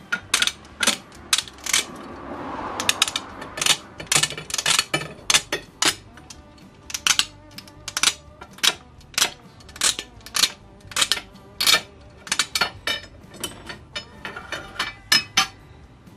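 A thin metal blade scraped in short, quick strokes across the threads of a brass pipe fitting, roughening the thread so hemp packing will grip. The strokes come irregularly, about one to two a second, with a longer, softer rasp around two to three seconds in.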